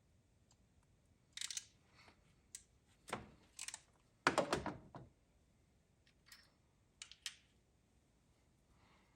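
Spark plug wires being handled and fitted on a car engine: a scattered series of short clicks, knocks and rubbing sounds, the loudest a cluster about four to five seconds in.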